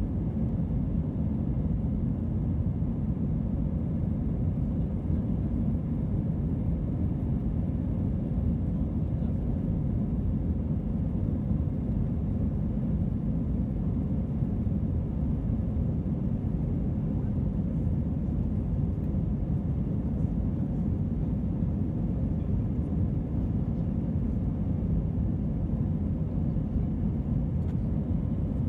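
Steady low rumble of a jet airliner's cabin noise, engines and airflow, heard from inside the cabin during the climb after takeoff.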